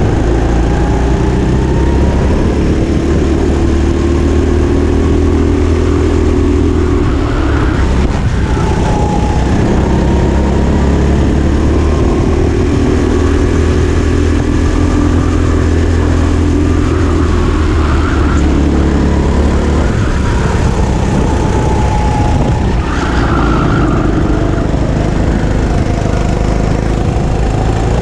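Go-kart engine heard from on board at racing speed, its pitch climbing as it accelerates and dropping back again several times as the kart laps the track.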